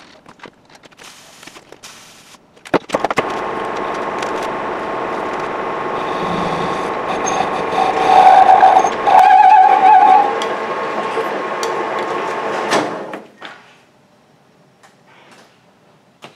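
Metal lathe starting with a clunk and running steadily, the chuck spinning a Tesla Model S steel half-shaft. Near the middle a hand-held tool held to the turning shaft gives two loud squeals, and the lathe then winds down.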